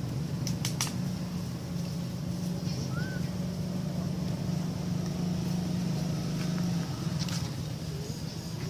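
A motor running steadily with a low hum, its upper tone dropping away about seven seconds in; a few sharp clicks and a short high chirp sound over it.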